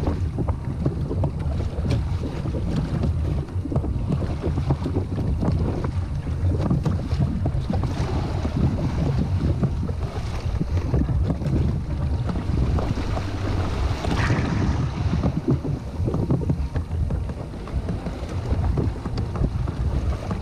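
Strong wind buffeting the microphone over choppy water rushing and slapping against a sailing kayak's hull in rough surf, with a louder rush about two-thirds of the way through.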